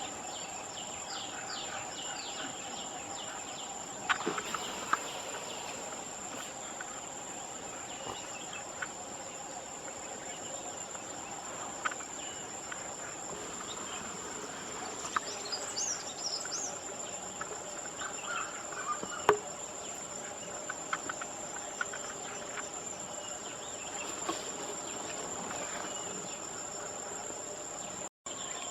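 Insects, likely crickets, trilling steadily at a high pitch, with scattered bird chirps and a few sharp clicks. The sound cuts out for a moment near the end.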